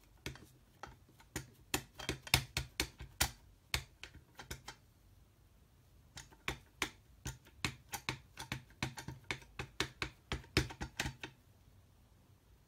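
An old wood-mounted rubber stamp tapped again and again onto an ink pad to ink it up: quick runs of light clicks and knocks, with a short pause about halfway.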